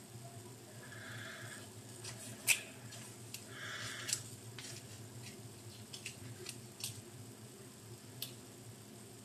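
Hands kneading and squeezing a lump of soft homemade flour dough: faint sticky squishes and scattered small clicks, the sharpest about two and a half and four seconds in, over a steady low hum.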